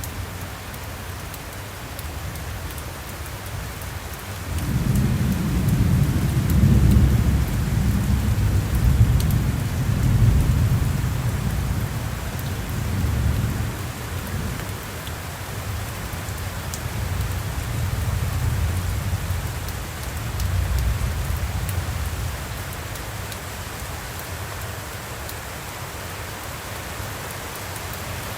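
Steady heavy rain falling, with a long low roll of thunder that comes in about four seconds in, peaks a few seconds later and rumbles away in waves over the next fifteen seconds.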